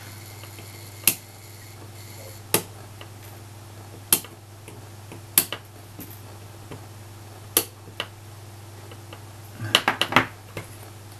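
Side cutters snipping off the soldered wire leads of components on a circuit board: sharp clicks about every second and a half, then a quick run of four near the end, over a steady low hum.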